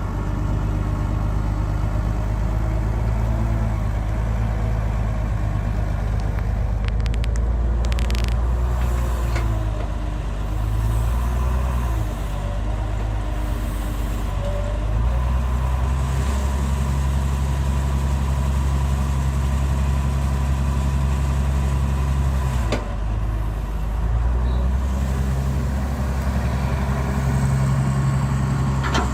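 Excavator's diesel engine running steadily, with a whine that wavers up and down in pitch as the hydraulics work, and a few sharp knocks.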